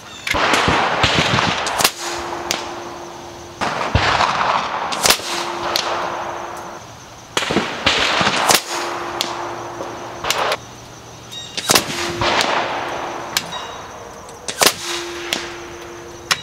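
Scoped .25-calibre PCP air rifle firing 36-grain slugs: a series of sharp shots a second or more apart, each followed by a short fading tail.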